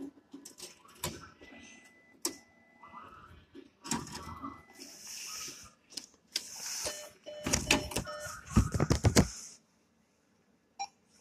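An NCR cash-in ATM's banknote acceptor drawing in and checking a stack of deposited notes: clicks, then whirring runs of the transport motor. The loudest part is a dense rattle near the end, after which the mechanism stops abruptly.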